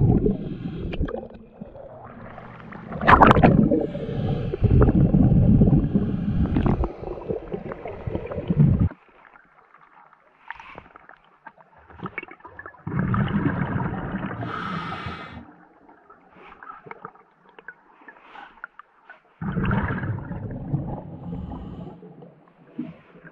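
Scuba diver breathing through a regulator underwater: loud bubbling exhalations lasting a few seconds each, four times, with quieter gaps for the in-breaths between.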